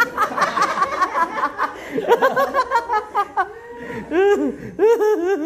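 Laughter: a person laughing in rapid repeated bursts, once about two seconds in and again from about four seconds in.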